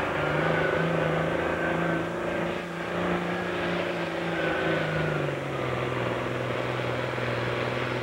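Diesel engine of a Super Farm class pulling tractor running flat out under load as it drags a weight sled. The engine note holds steady, then drops in pitch about five seconds in.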